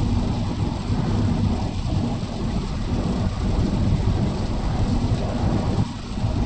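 Steady low rumble of a car driving in the rain, heard from inside the cabin, with an even hiss of rain and wet road over it.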